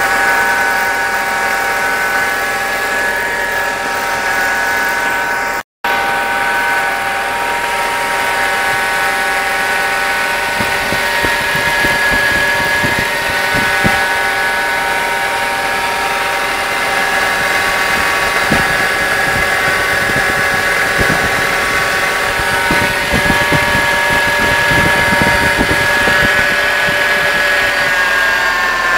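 VW Passat B5 engine running, with a steady droning hum from a bearing in the air-conditioning compressor, which the owner takes for a worn, noisy bearing.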